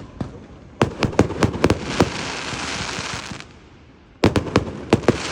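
Fireworks going off: a rapid string of sharp bangs about a second in, followed by a couple of seconds of hissing crackle, then another quick volley of bangs near the end.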